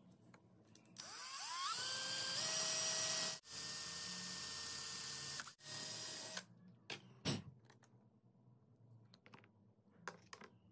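Cordless drill spinning up with a rising whine and boring into a hardwood gun grip, running in three stretches over about five seconds before stopping. A single sharp knock follows.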